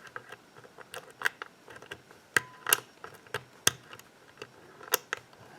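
Lock pick working the pins of a six-pin lock with serrated and spool pins: an irregular run of small metallic clicks and ticks as the pins are probed and set, a few of them sharper than the rest.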